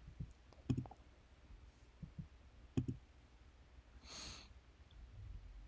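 Faint computer mouse clicks, a few scattered ones with the two plainest about two seconds apart, over low room tone.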